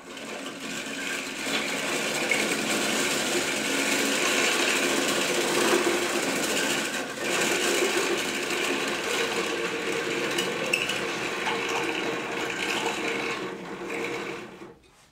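A string binder winding thread around taped, freshly rough-bevelled bamboo rod strips to bind them for heat treating: a steady mechanical whirr of its gears and pulleys, with a brief break about seven seconds in.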